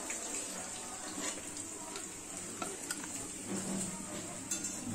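Hot oil sizzling in a non-stick kadai, left over from frying fish pieces, with scattered pops and a spatula stirring in the pan.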